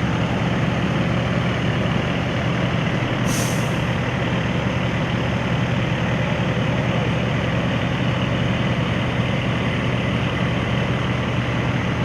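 A large engine running steadily with a deep hum, and one short hiss about three seconds in.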